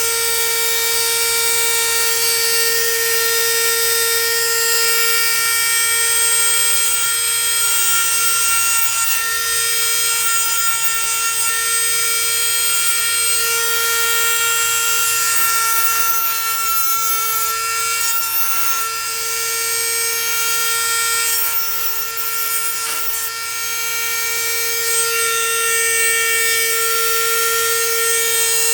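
High-speed power tool running steadily, its high-pitched whine holding one even pitch throughout.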